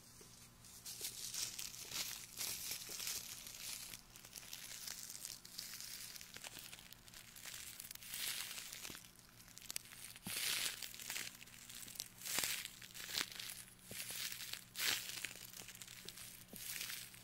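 Fingers rubbing and scratching on the ears of a binaural ear microphone, heard very close up as crinkly friction noise in irregular bursts, with several sharper strokes in the second half.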